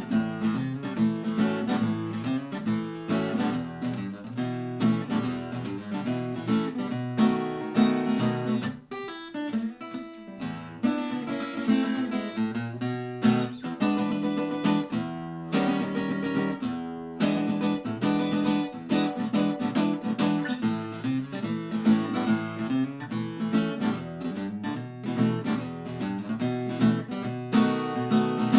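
Yamaha APX3 acoustic-electric guitar being played, chords strummed and single notes plucked without a pause.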